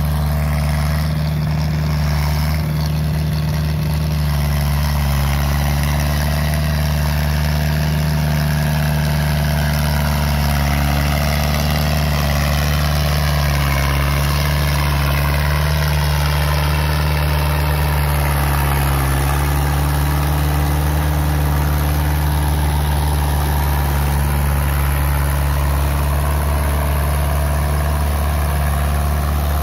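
New Holland TD80 tractor's diesel engine running steadily under load as it drives a rotary tiller through wet paddy-field mud.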